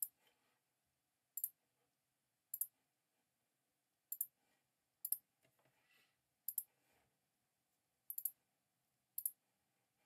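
Computer mouse clicks: about eight sharp clicks, most of them quick double clicks, roughly one every second, while selecting and recolouring objects on screen.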